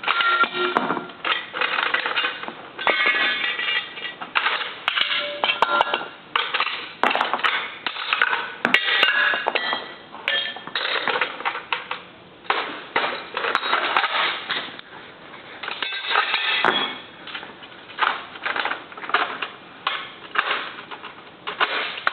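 Metal clanks, clicks and clatter of a machine gun being handled and cleared by hand, in quick irregular strokes with brief pauses.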